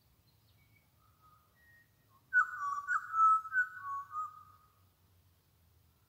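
Pied butcherbird singing: a few faint whistled notes, then a louder phrase of fluting whistles beginning a little over two seconds in and fading out about two seconds later.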